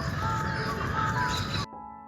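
Soft piano background music, held notes over a loud stretch of noisy ambient sound that cuts off abruptly about one and a half seconds in.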